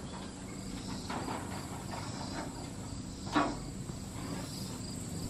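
Insects chirring steadily in the background, with a few faint knocks and one clearer knock a little over three seconds in.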